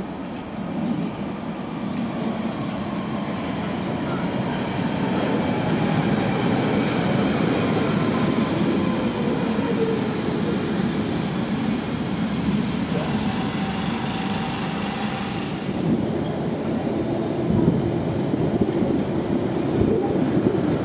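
London Underground 1992 tube stock train running into the platform: a rumble of wheels on rails that builds up and then holds steady, with a whine that falls in pitch as the train slows. A higher squeal joins in for a couple of seconds about two-thirds of the way through.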